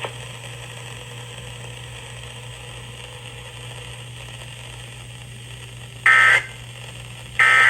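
EAS End of Message data burst, the digital "NNNN" header that closes an Emergency Alert System test, sent over FM radio: after about six seconds of dead air with a low hum and hiss, two short, loud warbling chirps of two high tones sound about a second apart, the second right at the end.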